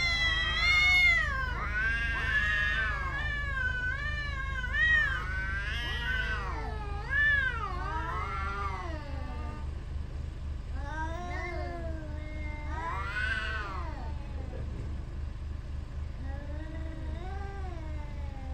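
Cats caterwauling at each other in a territorial standoff: long, wavering yowls that rise and fall, sometimes two voices overlapping. The calls are almost continuous for the first half, then come in shorter bouts with pauses, over a steady low hum.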